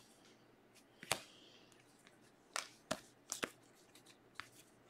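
Topps Stadium Club Chrome trading cards being flipped through by hand, each card slid off the stack onto the next: about six short, sharp card clicks spread unevenly over a few seconds.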